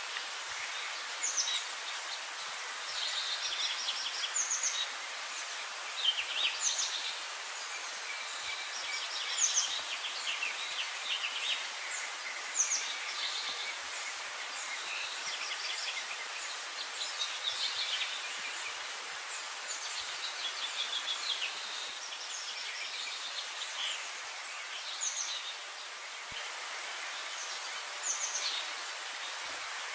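A flock of sparrows chirping: quick runs of short, high chirps recurring every second or two, over a steady outdoor hiss.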